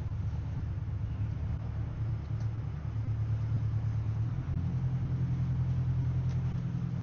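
Engines of a 44 ft Aquila yacht running steadily under way, a low drone whose pitch shifts a step about four and a half seconds in.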